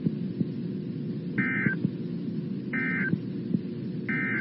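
Emergency Alert System end-of-message signal: three short bursts of two-tone digital data warble, evenly spaced a little over a second apart, marking the end of the alert. A steady low hum of broadcast background noise runs underneath.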